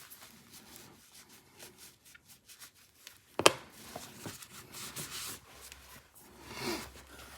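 Faint rubbing and handling noises as small knife parts and tools are worked on a bench, with one sharp click about three and a half seconds in.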